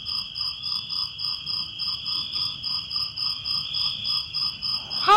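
Chorus of night-calling animals: a steady high trill, with regular chirps about three times a second over it.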